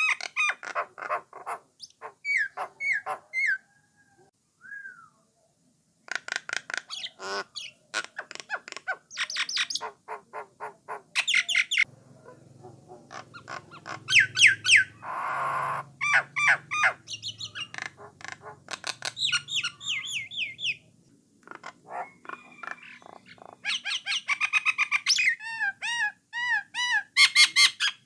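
Jalak nias (jalak coklat) bird singing a varied song of rapid chattering notes and whistled glides, with a harsh squawk about halfway through and a couple of short pauses.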